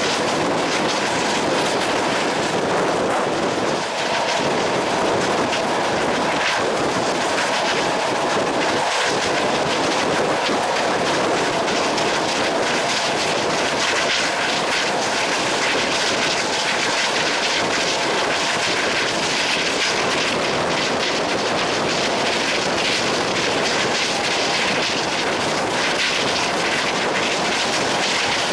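A moving train running along the track: a steady loud rush and rumble of wheels on rails, with faint wheel clicks.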